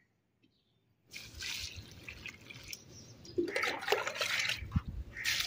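Water sloshing and splashing as a mug scoops it from a plastic bucket and pours it onto the soil around a sapling, starting about a second in.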